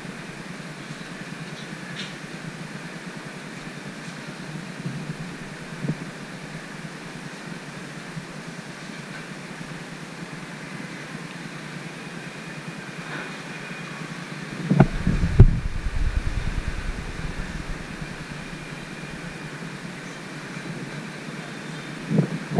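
Steady whir of room ventilation, a fan or air-conditioning unit, with faint steady tones running through it. Dull low thumps break in about fifteen seconds in and again near the end.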